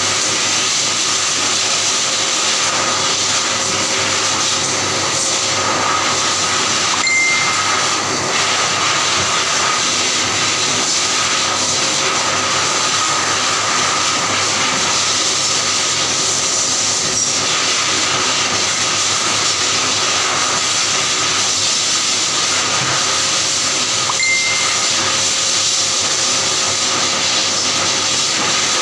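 An air blower running steadily: a loud, even hiss of rushing air with a faint steady whine under it. Two brief high blips sound, one about seven seconds in and one near the end.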